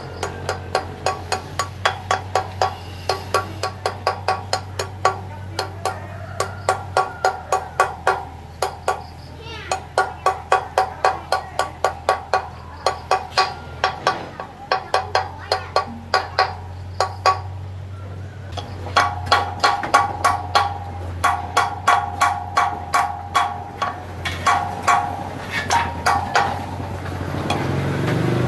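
Hammer striking a steel drift set on the hub of a spoked motorcycle wheel, about three ringing metallic blows a second with a few short pauses, working the parts out of the hub centre.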